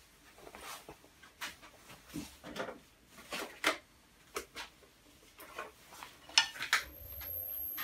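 Light clinks and clatters of metal turning tools being handled near the lathe, with two sharper knocks near the end. In the last second the VB36 lathe's motor starts and runs with a steady low hum and a faint high whine.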